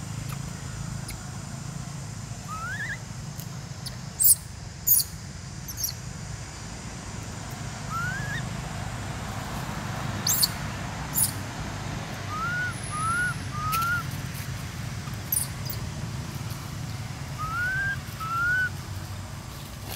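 Short rising whistled chirps from an animal in the trees: one early, one about 8 seconds in, three in quick succession around 12 to 14 seconds, and two near the end. Sharp high ticks are scattered between them and are the loudest sounds. A steady low hum runs underneath.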